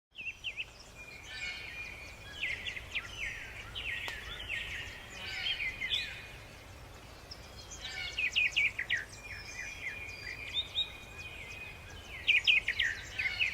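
Several songbirds chirping and trilling in quick runs of notes, over a low steady rumble.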